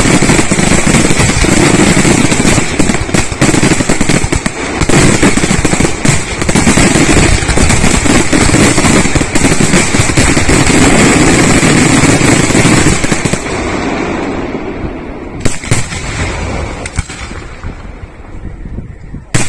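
Aerial fireworks shells bursting in a loud, rapid barrage of bangs and crackle, thinning about thirteen seconds in to a few scattered bangs.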